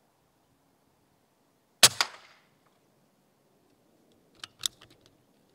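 Air rifle shot: a sharp crack with a second crack a split second later, the pellet striking the rat. About two and a half seconds later comes a quick run of smaller sharp clicks.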